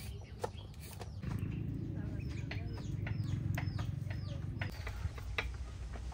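Chickens clucking and peeping with short, falling chirps, over a few sharp knife taps on a cutting board. A low steady rumble runs through the middle stretch.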